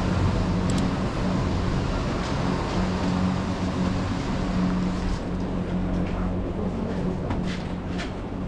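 Steady low rumble and hum of a moving vehicle, with a few light clicks and knocks near the end.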